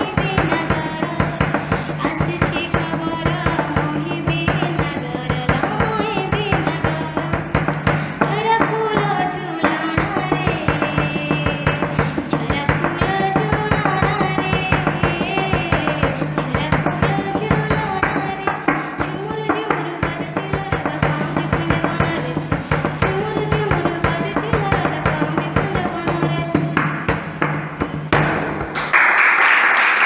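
A child singing an Odia devotional bhajan to Krishna, with fast hand-drum beats and a steady low drone underneath. About a second before the end the music gives way to a loud, even rushing noise.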